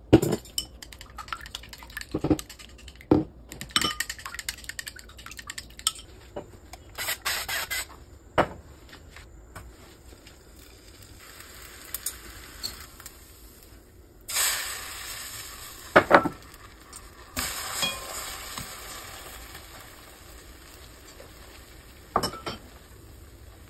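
Repeated clinks and taps of a utensil beating eggs in ceramic bowls, then sizzling in a hot nonstick pan as a scallion-pancake wrapper and the beaten egg fry, in two spells of hiss with a few knocks of the pan.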